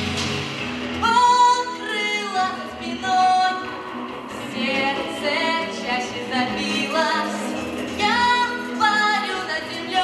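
A young female vocalist singing a pop ballad into a handheld microphone over an instrumental backing track. Her voice comes in about a second in, with long held notes that waver in vibrato.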